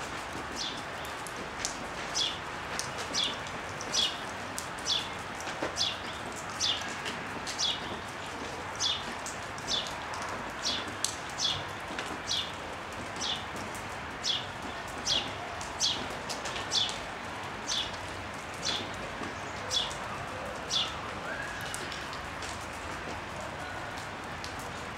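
A sparrow chirping over and over, each chirp a quick falling note, about one or two a second and thinning out near the end, over the steady hiss of falling rain.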